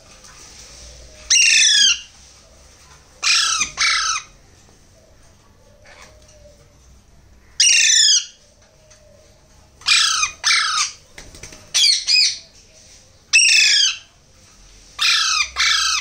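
Baby Alexandrine parakeets squawking loudly and harshly while being spoon-fed: food-begging calls. The calls come one at a time or in quick pairs, every second or two.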